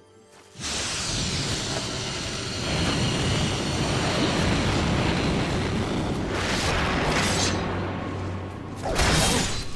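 Film fight-scene sound effects over dramatic score: a sudden loud rush of noise about half a second in that holds, with a falling sweep at its start and two swooshes in the second half.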